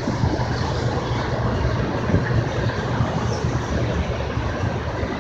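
Norfolk Southern manifest freight train, led by two diesel locomotives, passing with a steady low rumble.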